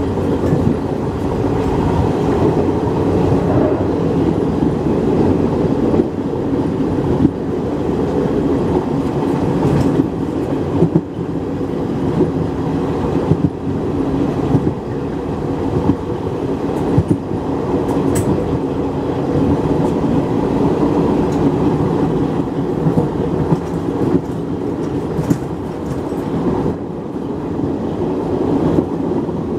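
Indian Railways passenger coach running at speed, heard from its open doorway: a loud, steady rumble of wheels on rail with frequent clattering clicks as the wheels pass over rail joints.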